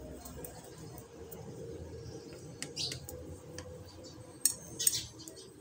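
Small birds chirping in the background in short calls, a few bunched about halfway through and again near the end, over the soft rustle and light clicks of cloth strips being knitted on a metal needle.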